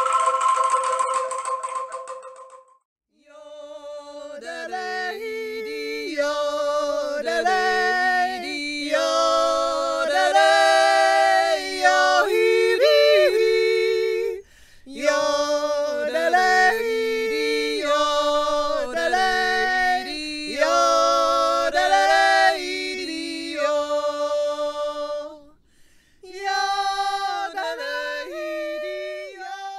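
Unaccompanied singing in two voices moving together a few notes apart, in ornamented phrases with leaps in pitch and short pauses between them. In the first couple of seconds, before the singing, a struck metallic note rings and fades out.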